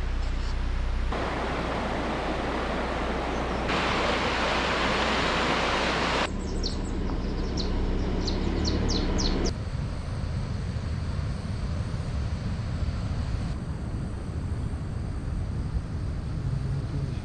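Outdoor ambience in several abruptly cut pieces: a steady rushing noise, then a run of short high chirps, then a low rumbling noise.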